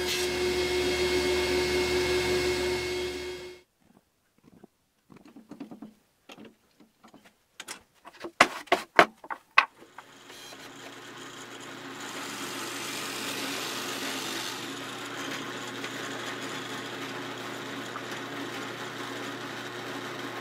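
Table saw running through a cut in a softwood offcut, cutting off abruptly after about three and a half seconds. A few sharp clicks and knocks follow. About ten seconds in, a benchtop drill press motor starts and runs steadily, with a brighter stretch of drilling a little later.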